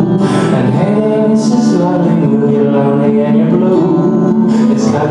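Recorded song playing, with singing in long held notes.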